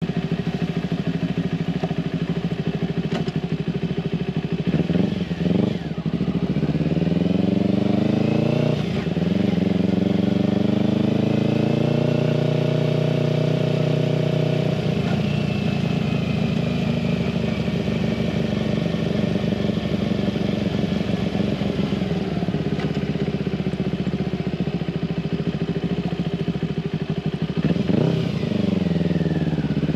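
2008 Kawasaki Ninja 250's parallel-twin engine under way, pitch climbing under throttle and dropping sharply at gear changes about nine and fifteen seconds in, then running steadily at an even speed before dipping and climbing again near the end.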